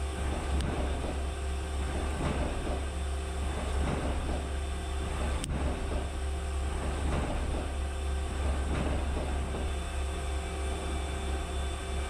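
CNC mill-turn machine shaping (broaching) the square hardy hole in an anvil: a steady machine hum with faint repeated cutting strokes about once a second.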